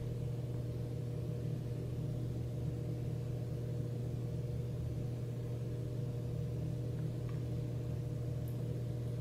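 A steady low machine hum, with a few faint steady higher tones above it.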